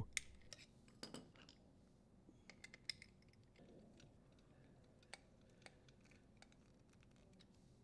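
Near silence with faint, scattered small metallic clicks of a screwdriver tightening the grounding screw on a sheet-metal terminal box.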